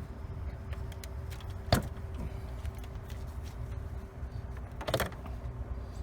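Hyundai Elantra's plastic engine cover being pulled off by hand: one sharp pop about two seconds in, then a short cluster of clicks and knocks near the end, over a steady low rumble.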